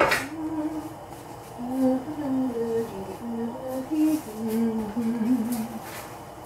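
A person humming a slow tune in held, stepped notes, opened by one sharp clack.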